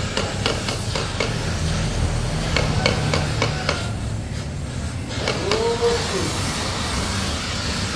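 Steady rush of a gas welding torch flame heating a stainless steel muffler, with scattered sharp metallic clicks and taps in the first second and again about three seconds in.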